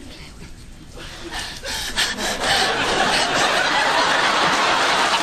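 Studio audience laughing, starting quietly and swelling loud about two seconds in.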